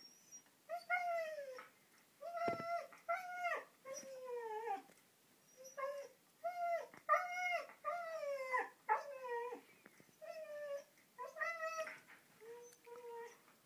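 Siberian husky "talking": a string of about a dozen short howl-like calls with brief pauses between them, many dropping in pitch at the end. The dog is excited and wants to go out for a walk.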